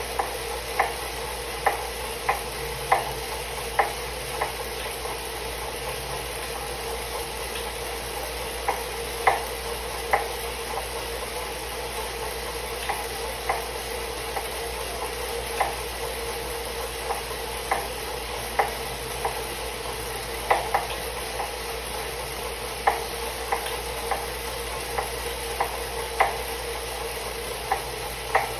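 Elite Suito-T direct-drive smart bike trainer running with a steady hum, over which a sharp knock repeats unevenly about once a second or so. The knocking is the fault the owner is showing.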